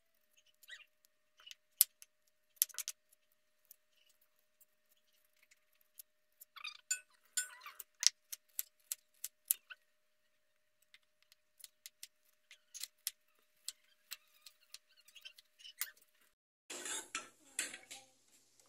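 Knife slicing a red onion on a cutting board: irregular sharp taps of the blade hitting the board, with a short spell of rustling about seven seconds in. Near the end a louder burst of hissing noise with clicks.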